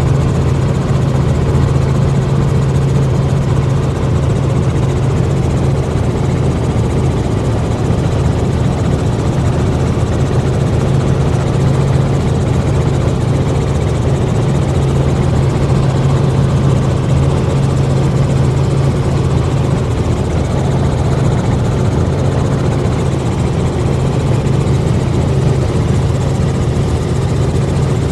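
Helicopter in cruising flight heard from inside the cabin: a loud, steady drone of engine and rotor, a strong low hum over an even rushing noise.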